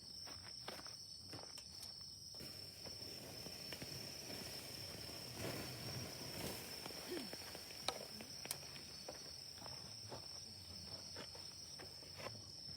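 Faint, steady high-pitched insect chirring, with scattered small clicks and crackles.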